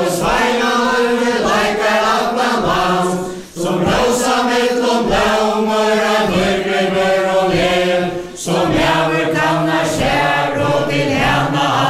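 A mixed group of men and women singing a Faroese dance song together, unaccompanied, in long sung lines with short breaks between them about a third and two thirds of the way through.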